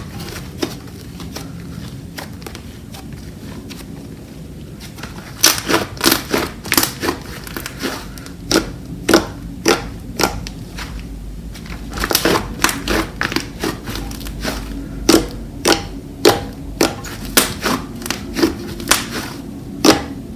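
Slime being squished and poked by hand, giving sharp clicks and pops in irregular runs, with a pause of a few seconds near the start.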